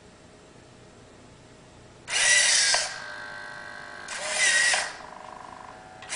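Hobby servo motors in a 3D-printed InMoov robot hand whining in two short bursts, about two and four seconds in, as they pull the fingers' nylon cables. Between the bursts the servos give a faint steady buzz while they hold the fingers in position.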